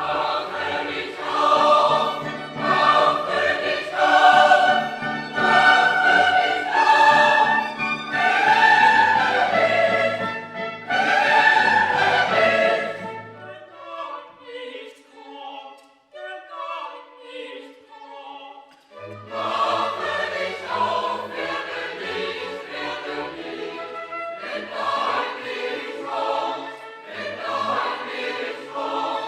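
Classical choral music: a choir singing held, wavering notes with orchestral accompaniment. About halfway through the low parts drop out for a few seconds, leaving a lighter passage, before the full choir and orchestra return.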